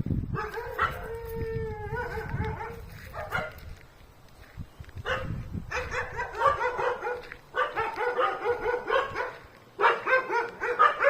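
A dog howling and yipping in four bouts of rapid, pitched calls; the first bout holds a longer howl that slides down in pitch.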